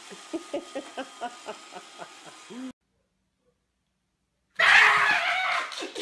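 A person giggling in quick short bursts, about four a second, over the steady hum of a robot vacuum. This cuts off about two and a half seconds in, and after nearly two seconds of silence a loud, rough, noisy sound begins.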